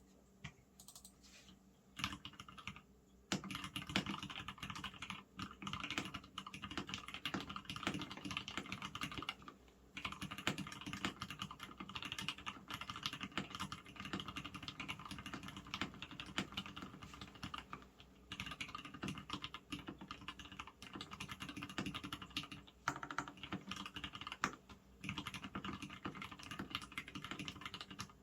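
Typing on a custom 65% mechanical keyboard with a polycarbonate case, stainless-steel plate and Gateron Red linear switches: a few scattered keystrokes, then fast, near-continuous typing from about two seconds in, broken by a few short pauses.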